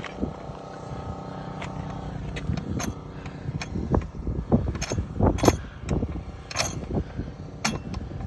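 Irregular metallic clinks and knocks as a McLaren 620R's center-lock wheel nut is unscrewed off the hub, starting about two seconds in. A steady hum is heard before them.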